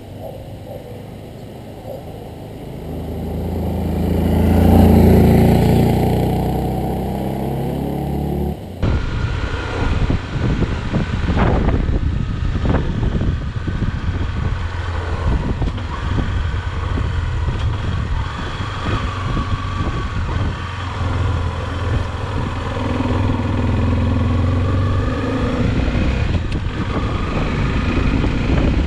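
Honda XRE 300's single-cylinder four-stroke engine passing close by, growing loud to a peak about five seconds in, then dropping in pitch as it moves away. After a sudden cut, the same engine is heard from the rider's seat while riding, its pitch rising and falling with throttle and gear changes.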